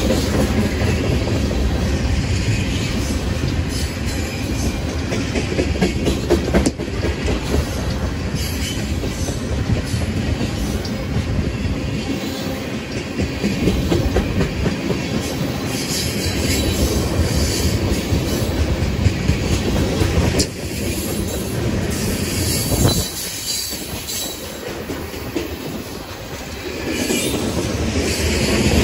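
Railroad tank cars of a freight train rolling past close by: a steady rumble of steel wheels on rail, with clacking over the rail joints and some high-pitched wheel noise.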